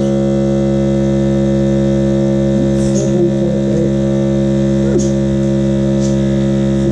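Vacuum sealer's pump running with a loud, steady hum as it draws the air out of a plastic bag before sealing it.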